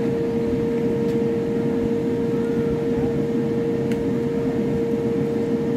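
Steady machine hum: one constant mid-pitched tone over a low rumble. A faint click comes about four seconds in.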